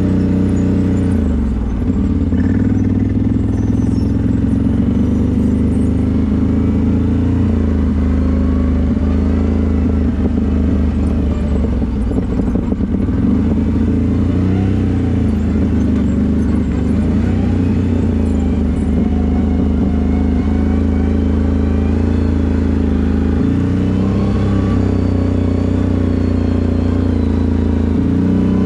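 CFMoto 1000 ATV's V-twin engine running under way, its pitch dropping and rising as the throttle changes, about a second and a half in and again near the end.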